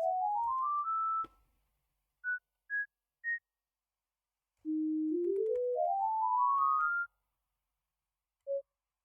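Short pure electronic beeps from a key-tester page, one per key pressed, climbing in pitch step by step in two quick rising runs, with three separate higher beeps between them and a single lower beep near the end. Faint clicks of the mechanical keyboard's switches sound under the beeps.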